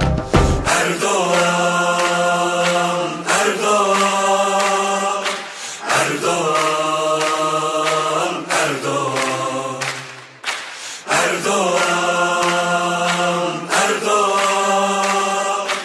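Background music: chant-like choral singing in long held notes, a new phrase starting about every two and a half seconds with a short slide into the note.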